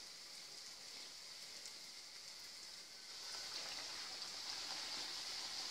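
Kefir-dough pirozhki frying in shallow hot oil in a frying pan: a faint, steady high sizzle that grows louder about three seconds in.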